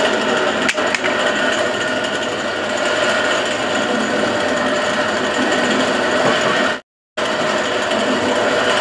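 Pillar drill press running with a steady motor whine, its bit grinding through the friction lining of a truck clutch plate. The sound cuts out completely for a moment about seven seconds in.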